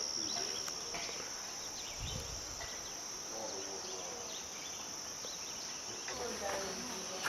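Steady high-pitched chorus of insects chirping outdoors, over a faint even background hiss.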